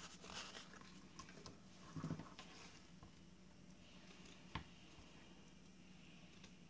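Near silence with faint rustling of satin ribbon being handled, and one sharp snip of scissors cutting the ribbon about four and a half seconds in.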